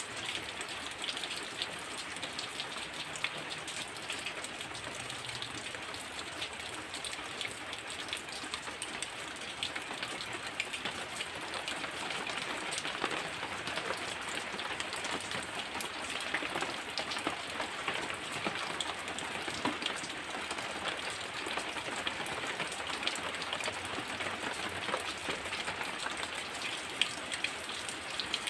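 Heavy rain falling steadily, a dense hiss dotted with countless individual drop impacts. It grows a little heavier about twelve seconds in.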